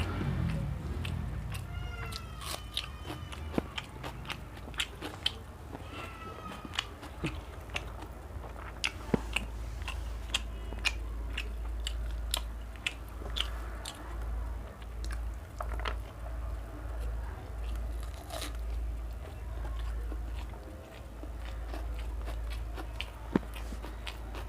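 A person eating close to the microphone: chewing with many sharp crunches and smacks, from a plate of rice, chana dal, parwal curry, crunchy bhujia and raw onion.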